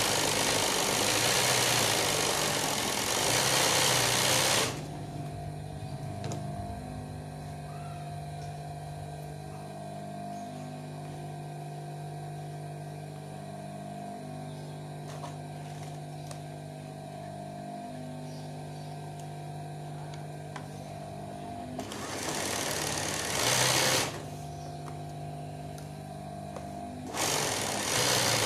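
Industrial sewing machine stitching free-hand embroidery in loud runs: a run at the start, a short burst a little after the middle, and another run near the end. Between the runs the stitching stops while a steady electric motor hum carries on.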